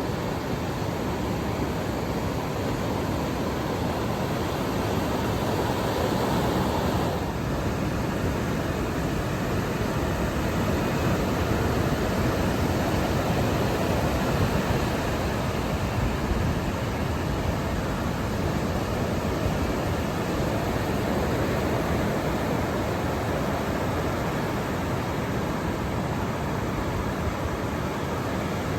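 Ocean surf breaking on a sandy beach: a steady wash of waves, a little louder around the middle.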